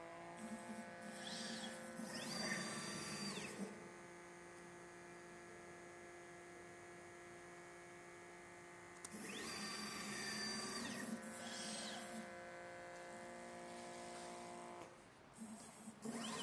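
Stepper motors of a desktop pick-and-place machine whining as its gantry head moves. The pitch sweeps up, holds and falls back about two seconds in and again about nine seconds in, with a shorter move near the end. A steady hum of several tones carries on between the moves.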